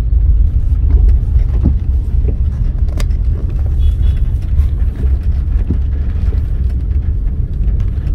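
Steady low rumble of a car driving slowly, heard from inside the cabin, with a single sharp click about three seconds in.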